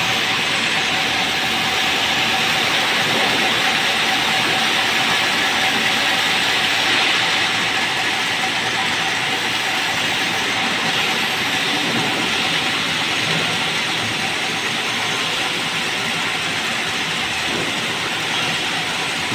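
Sawmill band saw running with a steady, unbroken mechanical noise.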